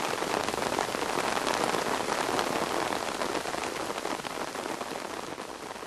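Steady rain falling on a pond and the surrounding grass and trees: a dense hiss of countless drops, growing a little quieter near the end.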